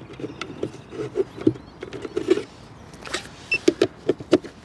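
Irregular plastic clicks and knocks as battery packs are pushed into a bait boat's hull. A short electronic beep about three and a half seconds in is the remote warning until the boat's batteries are connected.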